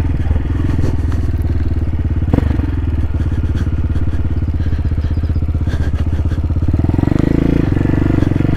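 2020 CSC TT250 dual-sport motorcycle's single-cylinder engine running steadily while riding a dirt track. There is a sharp knock a little over two seconds in, and the engine gets louder near the end.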